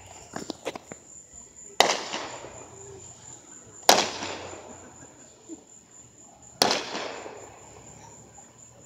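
Aerial fireworks bursting: three loud, sharp bangs two to three seconds apart, each trailing off in a fading echo, after a few faint crackles at the start.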